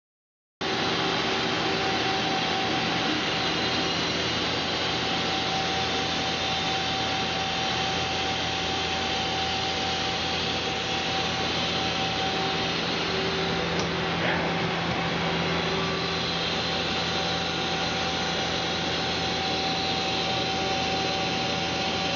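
Mazak QTN-250MSY II CNC turning centre running under power: a steady mechanical whir and hum with a few faint steady tones mixed in, starting suddenly about half a second in.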